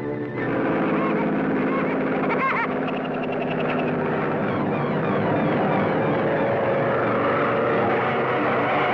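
Cartoon sound effect of a propeller airplane's engine running steadily, with a few wavering whistle-like pitch glides about two and a half seconds in.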